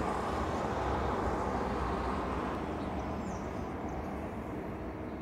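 Steady rumble of distant road traffic from the roadway below, easing slightly toward the end.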